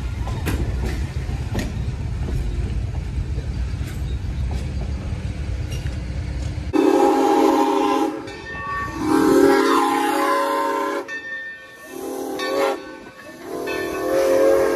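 Passenger coaches rolling past with a low rumble and a few wheel clicks. Then steam locomotive 3025's chime whistle blows long, long, short, long, the grade-crossing signal as it nears a road crossing.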